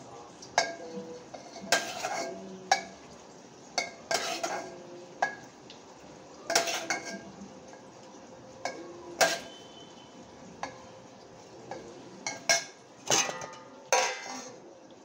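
Stainless steel pots, a lid and a metal spoon clinking and clattering against each other in irregular knocks, some ringing briefly, with a few scrapes.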